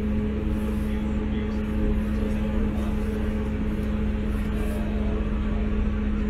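Class 159 diesel multiple unit's underfloor Cummins diesel engine idling while the train stands, heard from inside the carriage: a steady hum over a low rumble.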